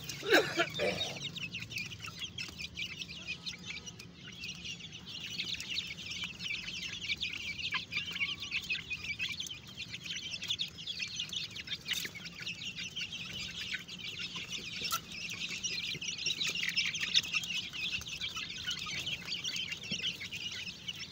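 A flock of Aseel chickens, hens and half-grown chicks, with a dense, continuous high-pitched cheeping mixed with clucks. A louder call stands out about half a second in.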